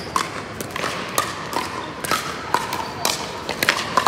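Pickleball paddles hitting the hard plastic ball: irregular sharp pops, about two or three a second, in a large hall.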